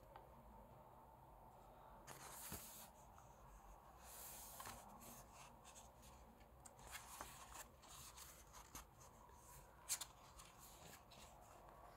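Pages of a thick photobook being turned by hand: soft paper swishes about two and four seconds in, then light rustles and small taps of fingers on the paper, the sharpest near the end.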